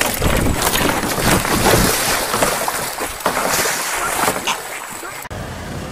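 Water splashing and a large bird's wings beating as it scrambles off a kayak, with wind buffeting the microphone and many sharp splashes and knocks. It cuts off sharply a little past five seconds, leaving a quieter steady hiss.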